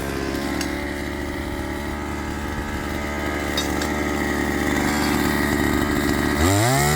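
Petrol-engine breaker (DCM-EB1 multipurpose engine breaker hammer) running steadily at work, its engine note slowly growing louder. Near the end the engine revs up in a quick rising whine.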